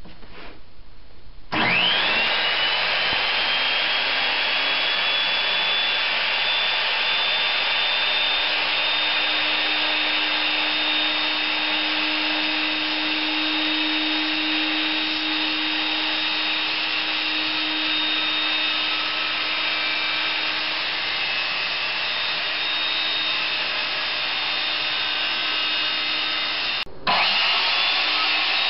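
Electric jigsaw sawing lengthwise through a snowboard to split it into a splitboard. The motor spins up with a rising whine about a second and a half in and then saws steadily. Near the end it stops for a moment and spins up again to carry on the cut.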